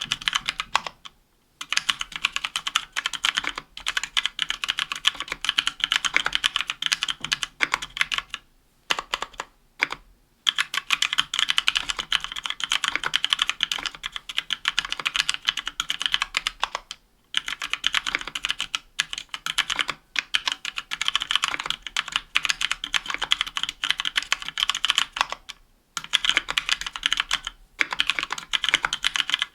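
Continuous fast typing on a 60% mechanical keyboard with an aluminium plate, Kailh Pro Purple tactile switches and GMK keycaps, a dense run of key clicks broken by brief pauses several times.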